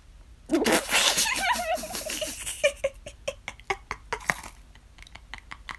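A person laughing: a burst of giggling about half a second in that trails off into short, separate chuckles and clicks.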